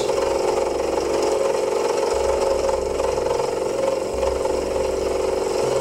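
Proxxon FF 230 milling machine running with a small end mill facing a flat screw seat in a silver-steel shaft part, a steady motor whine.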